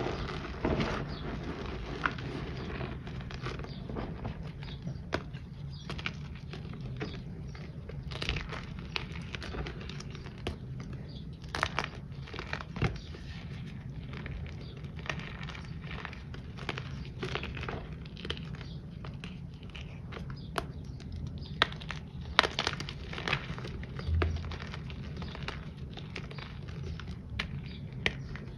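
Hands crushing handmade reformed powder shapes into loose powder and squeezing the broken chunks in cupped palms: soft crunching and crackling with many sharp little cracks. The shapes are a little crunchy, being made from a different batch of powder.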